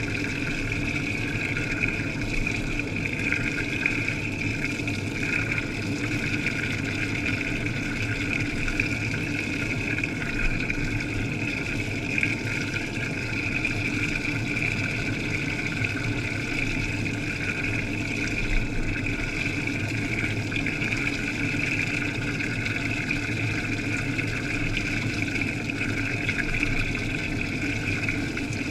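Washing machine running mid-wash, heard underwater from inside the drum: a steady churning hum with a constant high whine over it.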